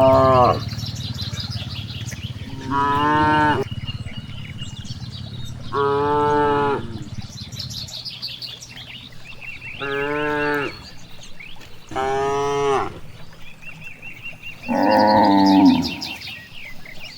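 Cow mooing again and again: about six short, fairly high-pitched moos, each under a second and two to four seconds apart.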